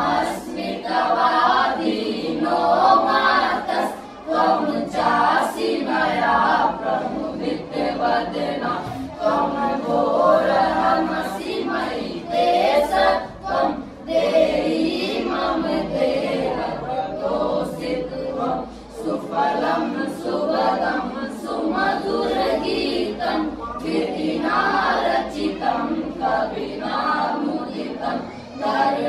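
A group of schoolboys singing together without instrumental accompaniment.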